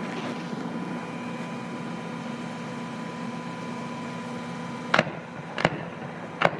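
Fireworks going off: three sharp bangs about a second apart in the last couple of seconds, over a steady background hum.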